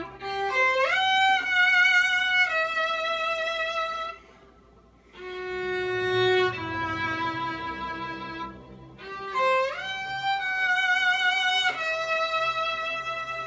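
Solo violin, bowed in long held notes with vibrato, twice sliding upward into a higher held note. The playing breaks off briefly about four seconds in.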